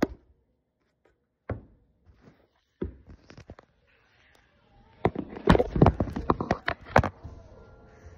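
A few single thumps, then a quick run of knocks, thuds and rubbing about five to seven seconds in: a phone being knocked about and handled close to its microphone.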